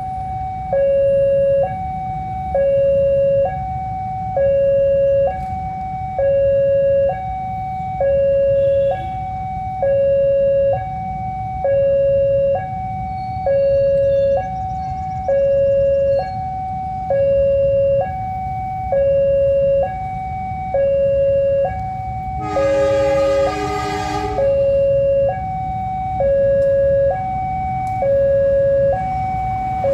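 Railway level-crossing warning alarm: an electronic two-tone signal alternating between a higher and a lower tone, about one second each, sounding as a train approaches. About 22 seconds in, a horn sounds once for about a second and a half over the alarm.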